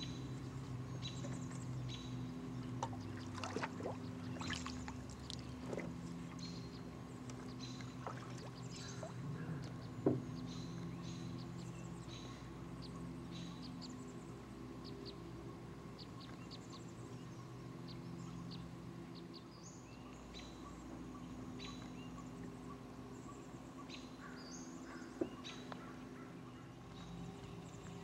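Small birds chirping in short, scattered calls over a steady low hum. There is a sharp knock about ten seconds in and another near the end.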